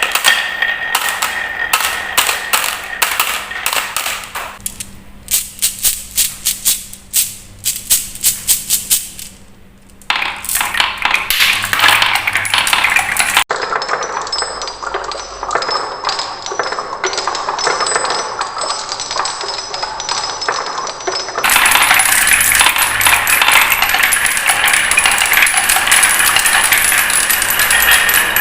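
Marbles and wooden balls rolling and clacking down wooden marble-run tracks. The first part is a quick series of separate clicks, about three or four a second, as balls drop from step to step. After a couple of cuts comes a denser continuous rattle of many balls rolling together.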